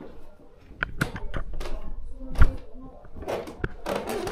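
Footsteps going down a steep wooden staircase: a string of irregular knocks and thumps, with one heavier thud about halfway.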